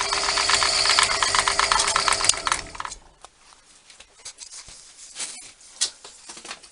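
A milling machine runs with a steady hum and a fast, even ticking from its gearing, then is switched off and stops about three seconds in. A few light clicks and knocks follow.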